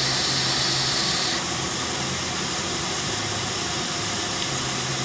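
Box-mod e-cigarette coil firing during a drawn vape hit: a hiss with a faint high whine that cuts off suddenly about a second and a half in. Under it runs the steady hum of a box fan.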